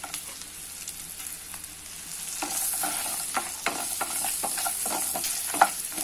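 Cashews, ginger, green and dry red chillies and whole spices sizzling in hot butter and oil in a kadhai, with a wooden spatula scraping and tapping the pan as they are stirred. The sizzle grows louder about two seconds in.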